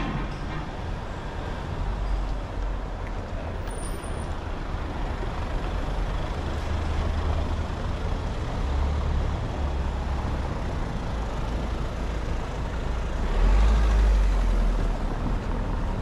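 A motor vehicle's engine running close by, a low rumble over general street noise that grows louder near the end.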